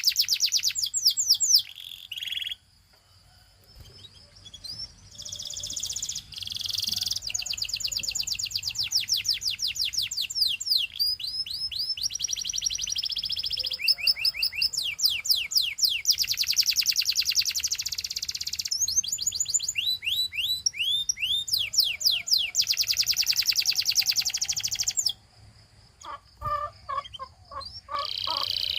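A canary singing a long song of fast rolling trills and quick whistled glides, broken by short pauses about three seconds in and near the end. Near the end come a few lower, croaky notes.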